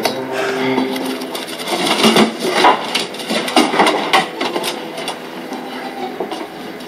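Irregular wooden knocks and metal clanks, thickest in the middle of the stretch, over a few faint held musical notes.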